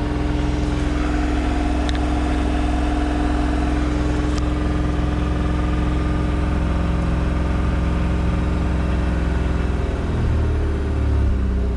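An old car's engine idling steadily just after a hard start on a flooded engine, its generator now charging. The engine note shifts about ten seconds in.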